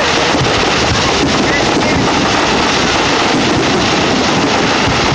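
Indistinct chatter of a large crowd, with a steady rush of wind on the microphone.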